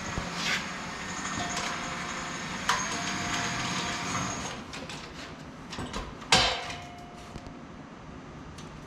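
Hand-lever sheet-metal shrinker working a bent steel patch panel: a few sharp metallic clunks as the jaws bite, the loudest about six seconds in, some followed by a short ringing of the panel.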